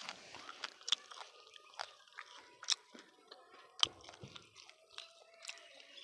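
Someone biting into and chewing a crisp guava: irregular crunches and clicks, a few of them sharper and louder.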